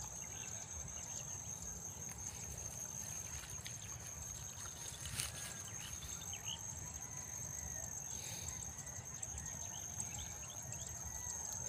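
Insects in a rice field making a steady high-pitched trill, under a low rumble, with one faint click about five seconds in.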